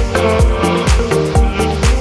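Background electronic dance music with a steady kick drum about twice a second, quick hi-hat ticks and sustained synth chords.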